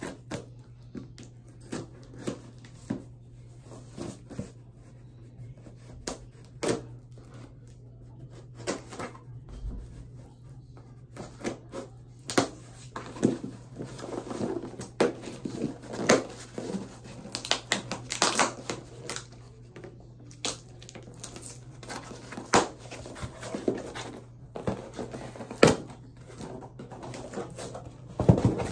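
Opening a small cardboard shipping box by hand: a thin metal tool scratching and slicing through the packing tape, with irregular scrapes, rips, taps and rustles of cardboard as the box is worked open.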